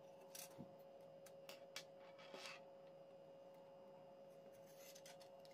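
Faint taps and rubbing of a plastic ruler and a small piece of card handled on a table: a few light clicks and rustles in the first half and a short cluster near the end, over a steady faint hum.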